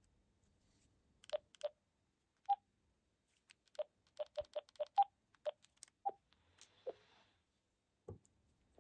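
Short electronic beeps from a DMR radio: about a dozen in an irregular series at two alternating pitches, each beginning with a click.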